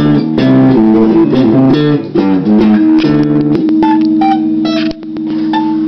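Electric guitar playing a riff of quickly changing notes, then holding a low note under a few short higher ones, with a brief break about five seconds in.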